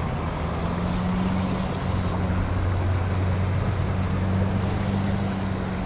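Small river rushing over rocks, a steady noise, with a low hum running under it.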